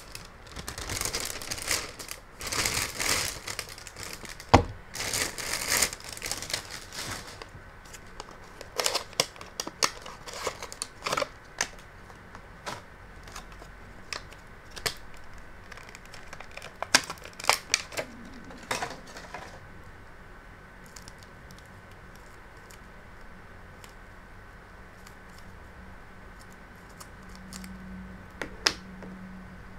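Puzzle packaging being handled and opened by hand: crinkling and tearing for the first several seconds, then scattered clicks and taps that thin out over the second half.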